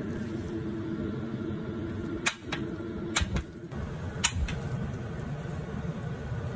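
Portable butane gas grill's ignition knob being turned, its igniter clicking sharply three times about a second apart, over a steady low hum.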